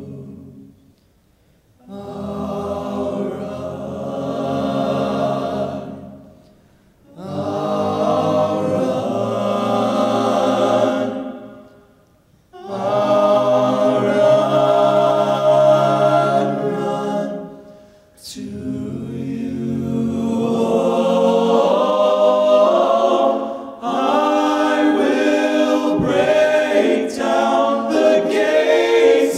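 Men's a cappella vocal ensemble singing amplified close-harmony chords with no instruments. It sings three phrases separated by short pauses, then one longer, busier and more rhythmic stretch for the last ten seconds or so.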